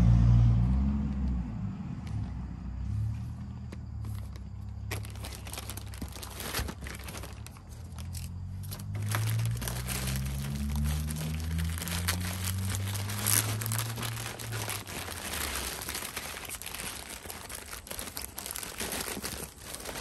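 Parcel packaging crinkling and rustling as it is handled and unwrapped, starting about five seconds in.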